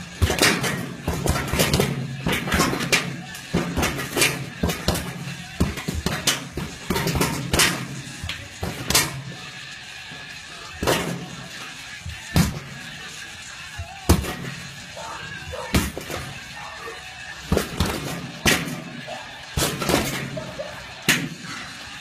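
Punches landing on a hanging punching bag: sharp thuds in quick flurries at first, then single blows a second or two apart.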